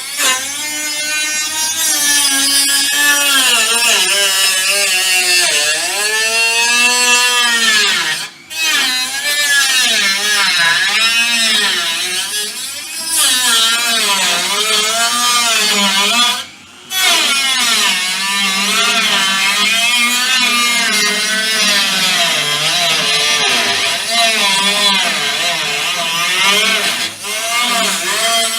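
Handheld power tool running almost continuously, its pitch rising and falling again and again. It stops briefly twice, about eight and about seventeen seconds in.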